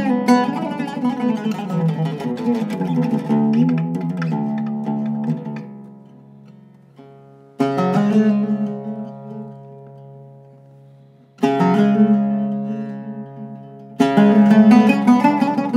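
Zaryab oud with a Canadian cedar top and a maple and wenge back, plucked in a solo improvisation: a quick run of notes that fades away, then two single strokes a few seconds apart, each left to ring out, and quick playing again near the end.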